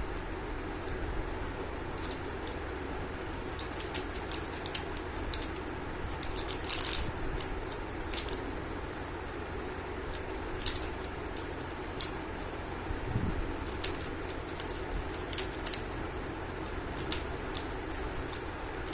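3×3 Rubik's cube being turned fast during a solve: irregular sharp plastic clicks of the layers snapping round, in quick flurries, over a steady low background hum.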